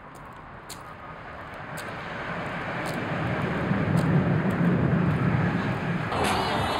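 Outdoor vehicle rumble swelling steadily louder, loudest about two-thirds of the way in, with faint sharp ticks about once a second.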